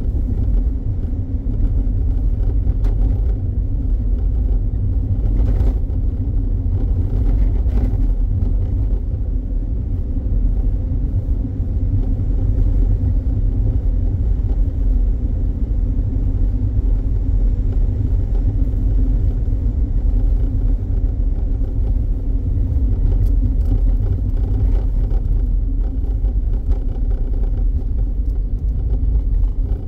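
Steady low rumble of a car driving, heard from inside the cabin: engine and tyre noise on the asphalt road.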